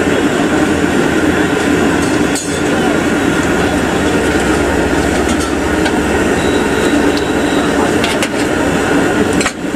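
Busy street din of many voices and traffic, with malpua sizzling in a pan of hot oil. A few sharp metal clinks from the tongs, one about two seconds in and another near eight seconds.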